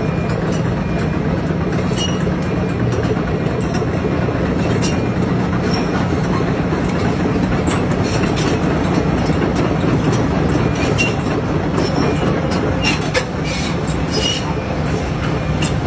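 Heavy diesel machinery running steadily, with a low engine hum and scattered sharp metallic clicks and clanks.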